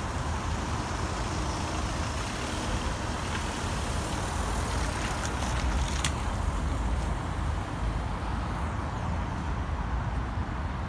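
Steady road traffic noise from passing cars and trucks, a continuous low rumble with no single vehicle standing out, and a short sharp tick about six seconds in.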